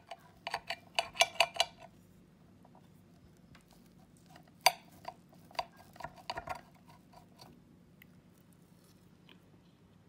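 Metal knife and fork clinking and scraping against a plate while cutting a tortilla, in two bunches of short, sharp, ringing clinks: the first about half a second in, the second about five seconds in and led by one louder clack.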